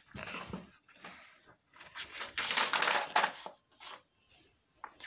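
Paper pages of a picture book rustling and crinkling as they are flipped and handled, in several bursts, loudest from about two and a half to three and a half seconds in.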